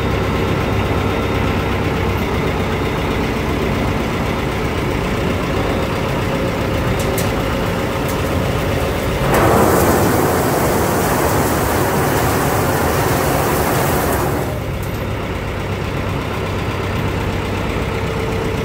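Forklift engine idling steadily. About nine seconds in, a crate of olives tipped by the forklift pours into a stainless-steel receiving hopper, a louder rushing pour that lasts about five seconds and then stops.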